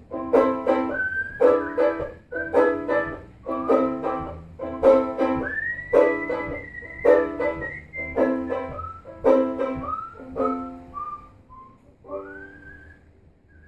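A man whistling a melody over a banjo-ukulele strummed in steady chords, about two strums a second. The strumming stops about three-quarters of the way through, and the whistling carries on alone.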